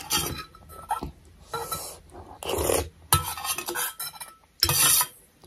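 Metal spoon scraping and clinking against a stainless steel bowl while scooping thukpa broth, in several short bursts.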